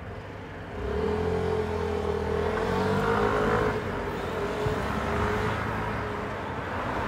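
A motor vehicle's engine hum on the street. It swells about a second in and holds, with a steady tone that wavers slightly in pitch.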